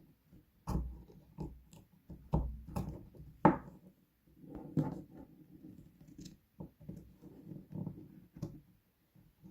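Irregular clicks, taps and knocks of a Samsung Galaxy Note 3 and small tools being handled while the phone is taken apart, the sharpest click a little past three seconds in.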